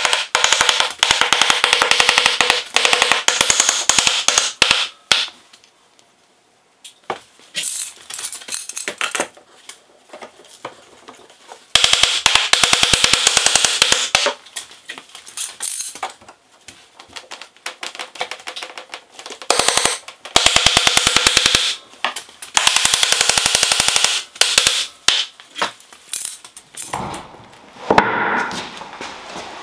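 A hammer tapping rapidly and repeatedly on the end grain of a freshly glued, clamped butcher block, knocking the blocks level, in several bursts of fast taps. Near the end, the clamped block scrapes and knocks as it is lifted and set upright.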